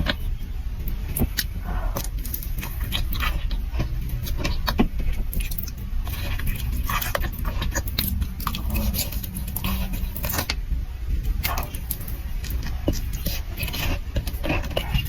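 Close-miked eating: chewing and crunching with many sharp clicks and crackles, over a steady low hum.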